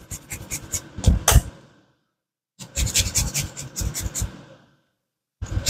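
A lime being zested on a long metal rasp grater over a bowl: runs of quick rasping strokes with light clicks, twice broken by about a second of silence.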